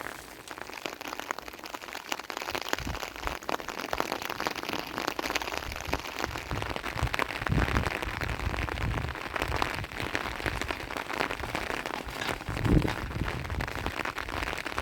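Rain pattering densely on a surface, with a low rumble from about three seconds in and a louder thump near the end.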